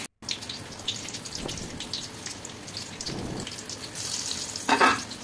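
Spring rolls sizzling and crackling in hot oil in an aluminium kadai. Near the end a utensil knocks against the pan as the rolls are moved.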